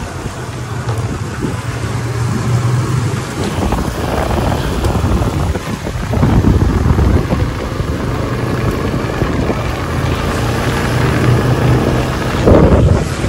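Motorcycle riding along: wind rushing over the microphone on top of the steady low drone of the engine, with louder gusts a few times and a strong one near the end.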